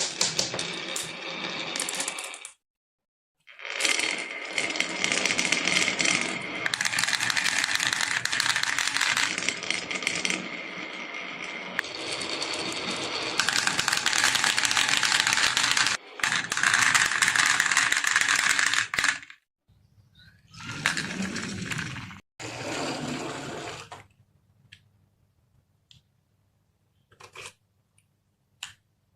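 Many marbles rolling and clattering down a wooden HABA marble run, a dense rattle of fine clicks broken by sudden cuts. In the last few seconds it thins to a few scattered clicks.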